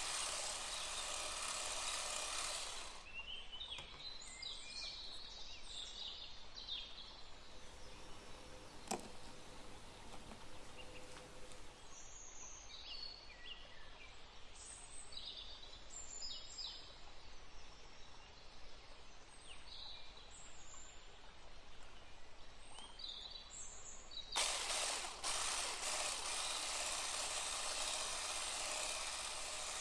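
Wire whisk beating thin cake batter in a glass bowl, a steady rapid swishing for the first few seconds and again for the last five. In between it is quieter, with a sharp click about nine seconds in and scattered small high chirps and clinks.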